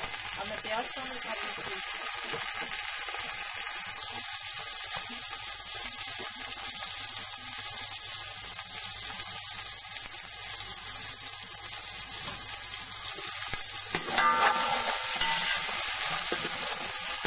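Sliced red onions sizzling in hot cooking oil in a steel pot, a steady hiss. About fourteen seconds in they are stirred, and the sizzle grows a little louder, with a faint scrape against the pot.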